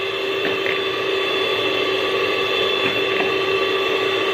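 Electric hand mixer running at a steady speed, its twin beaters whipping cream in a bowl: a steady motor whine.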